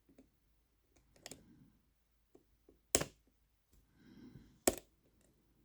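Small brass lever lock being picked with a tensioner and a thin picking wire: faint metal ticks and scrapes, with two sharp, loud clicks about three seconds and four and a half seconds in, the levers clunking as they drop back into place.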